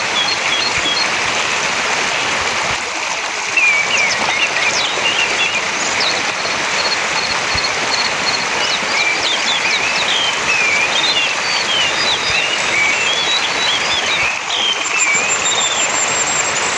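Orange-headed thrush singing a varied run of quick whistled phrases and short trills, with a fast, very high trill near the end, over a steady rushing water sound like a stream.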